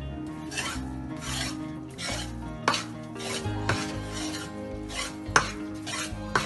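Metal ladle scraping and stirring gram flour roasting in ghee in a metal kadhai, in strokes about twice a second, with a few sharp clinks of the ladle against the pan, the loudest about two-thirds of the way in.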